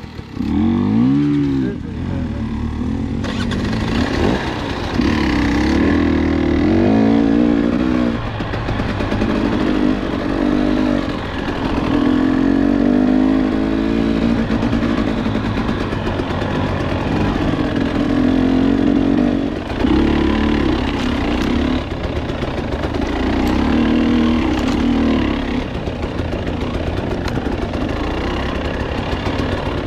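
KTM 300 XC two-stroke dirt-bike engine heard from on the bike, with a quick rising rev at the start, then revving up and down every few seconds while riding.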